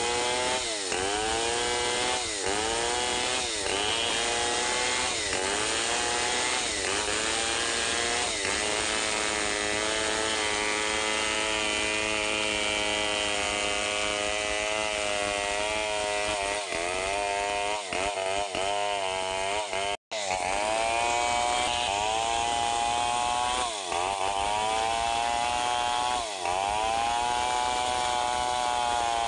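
Stihl 070 two-stroke chainsaw with a long bar ripping a log lengthwise into beams. The engine pitch sags under load and recovers over and over, about once a second at first, holds steady for several seconds in the middle, then sags and recovers again after a brief dropout about two-thirds through.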